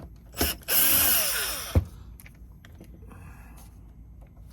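Power drill with a driver bit backing out a small screw: a quick blip, then a whir of about a second that ends in a sharp click, with a shorter, fainter buzz later.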